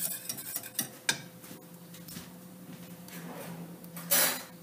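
Wire whisk clicking and scraping against a stainless steel saucepan of gravy as the whisking stops, with a sharp click about a second in. Then a faint steady hum, and a brief noisy clatter of utensils about four seconds in.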